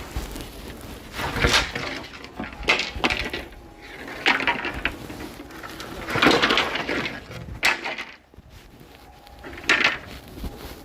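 Wood in a sawmill clattering and knocking in six irregular short bursts, about one to two seconds apart, with no steady saw tone running.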